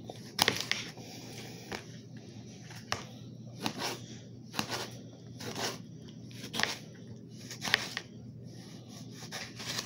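Kitchen knife slicing through a tomato onto a plate: a short crunchy cut and knock of the blade about once a second. The knife is getting dull, by the cook's own account.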